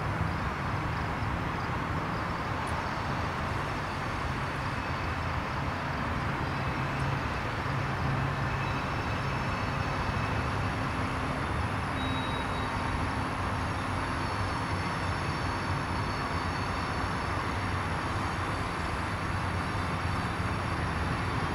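Freight train of covered hopper cars rolling past, a steady rumble of wheels on the rails.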